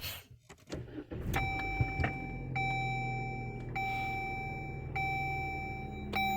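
Dodge Journey's 2.4-litre four-cylinder engine starting and settling into a steady idle, with the dashboard warning chime dinging repeatedly, about once a second. No knocking comes from the HVAC actuator behind the glovebox: the replaced actuator has cured the noise on start-up.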